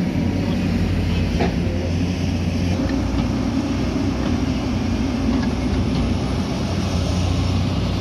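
Diesel engines of hydraulic excavators and a backhoe loader running steadily under working load, with a few faint knocks of rock and soil.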